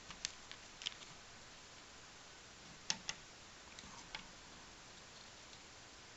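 Scattered light, sharp clicks of a thin plastic stick tapping against the bottom of a door and the floor tile as a cat bats at its tip. The loudest is a quick pair about three seconds in, and the clicks stop after about four seconds.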